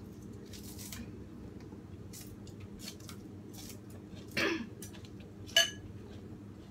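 Small kitchen scissors snipping fresh herbs and green onion: scattered short snips and rustles, with a louder rustle about four and a half seconds in and one sharp click a little after five and a half seconds.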